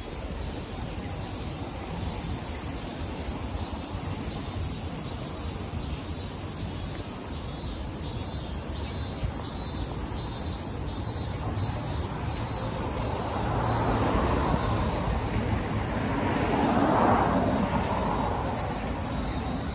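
City street ambience with a steady traffic rumble; a vehicle passes, loudest from about thirteen to eighteen seconds in, over a faint high chirp repeating about one and a half times a second.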